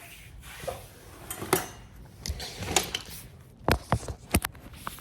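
A run of sharp knocks and clatters of hard objects being handled, irregular, with the loudest as quick double clicks near the end.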